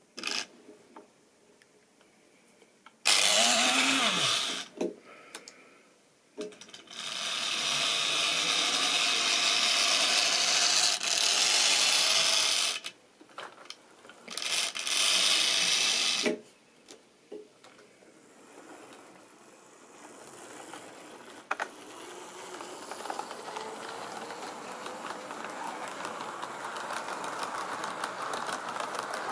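OO-gauge model railway locomotives' electric motors whirring with wheels running on the track: loud in stop-start stretches in the first half, then a steadier, building running sound as a train of coaches passes close by.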